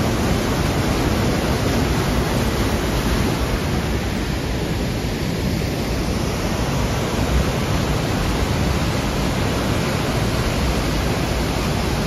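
Fast white water rushing down a rocky gorge and pouring over a waterfall into a pool: a steady, loud, even rush of water.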